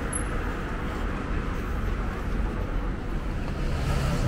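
City street traffic: a steady low hum of passing road vehicles, with a low engine note rising into it near the end.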